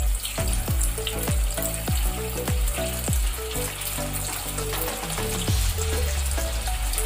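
Sabudana vadas deep-frying in hot oil in a kadhai, a steady sizzle of bubbling oil. Under it runs background music with a deep bass beat about twice a second and short melody notes.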